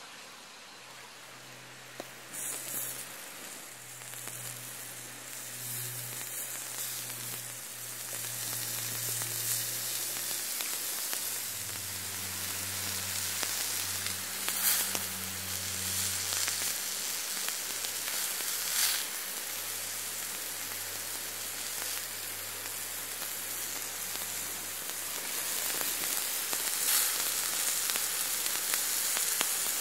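Rare beef cutlet slices sizzling on a hot black stone grill plate: a steady frying hiss that starts about two seconds in and grows louder, with a few sharp crackles and a faint low hum underneath.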